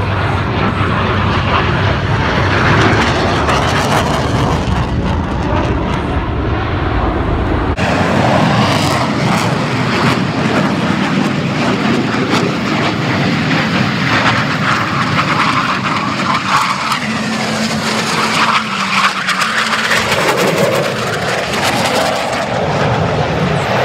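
Blue Angels F/A-18 Hornet jets flying a low display pass, a loud steady jet roar. About eight seconds in, the deep low rumble drops out abruptly and a thinner rushing jet noise continues.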